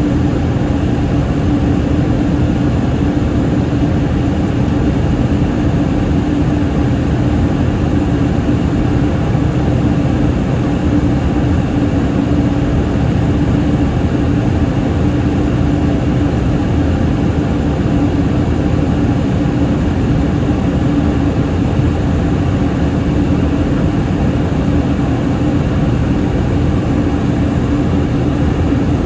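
Steady cabin noise inside a Yakovlev Yak-40 in flight: the even rushing of its three Ivchenko AI-25 turbofans and the airflow, with a constant low hum running underneath.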